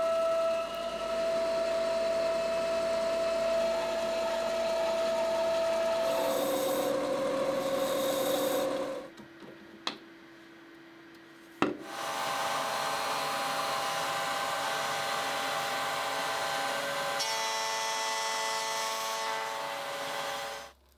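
Power tools cutting and shaping a scrap block of solid polyethylene into a replacement bandsaw pulley, in a run of short takes: a steady machine tone that shifts pitch from take to take. About halfway through there is a quieter pause with a click and a sharp knock, then machining resumes until it cuts off just before the end.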